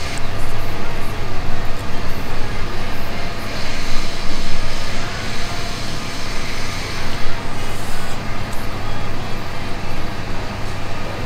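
Loud, steady background noise with a constant low hum running under it.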